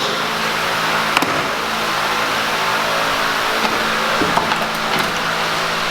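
Steady mechanical hum with several fixed tones, with a couple of brief sharp clicks, about a second in and again near the end.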